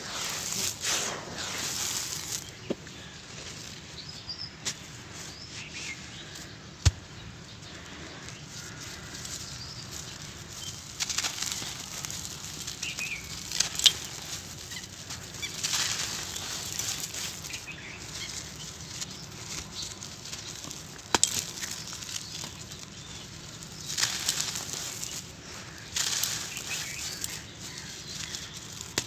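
Dry, dusty sand clumps crushed and crumbled between bare hands: gritty crunching and rustling that swells in waves every few seconds, with a few sharp cracks.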